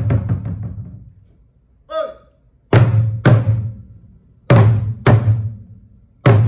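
Korean buk barrel drums in a samulnori piece: a quick run of strokes dies away to quiet, a short vocal call follows, then the drums strike together in pairs of deep strokes about half a second apart, with a pause between the pairs.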